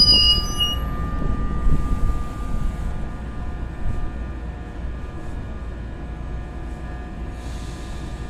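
NJ Transit train running on the rails: its wheel squeal tails off within about the first second, leaving a low rumble with a few faint steady tones that slowly fades.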